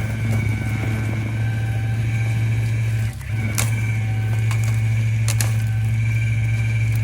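Tow truck running steadily during a winch-out, a deep continuous hum with a steady high-pitched whine over it and scattered light clicks; the sound dips briefly about three seconds in.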